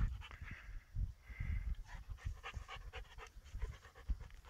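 Golden retriever panting quickly, about four breaths a second, out of breath from rough play with a smaller dog.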